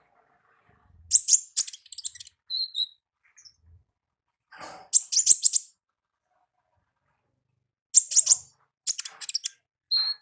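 Konin ninja songbird calling in its wild-type song: three bursts of rapid, sharp, high-pitched chirps, the first about a second in, the second near the middle and the third near the end.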